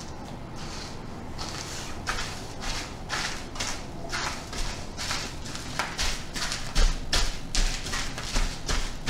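Crushed Goldfish crackers crunching under the rubber soles of thong sandals as the feet step and grind on them, in a quickening rhythm of short crackles that grows louder. From about two-thirds through, each step also lands with a low thud.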